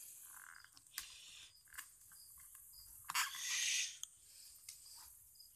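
Faint chirping insects, short high chirps repeating in the background. A few sharp clicks and a short scraping rustle about three seconds in, the loudest sound, break through.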